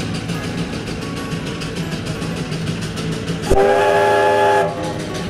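1915 Frick single-cylinder steam traction engine running with a steady, even exhaust beat. About three and a half seconds in, its steam whistle sounds one loud blast of about a second, several tones at once, then cuts off.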